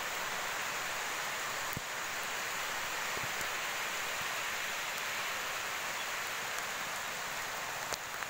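Heavy rain falling steadily, a dense even hiss, with a faint tick about two seconds in and another near the end.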